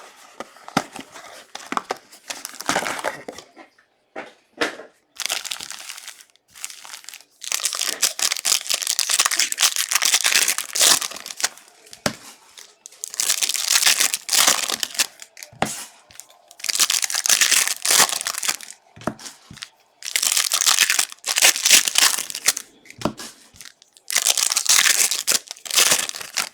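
Plastic wrapping on packs of 2022 Panini Prizm No Huddle football cards being torn open and crumpled, in repeated bursts of ripping and crinkling, several lasting two or three seconds.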